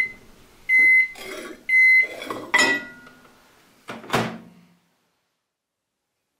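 Microwave oven's end-of-cycle beeps, high and steady, about one a second, signalling that the heating of the liquid PVC is done. A click and a sharp clunk follow as the oven door is handled.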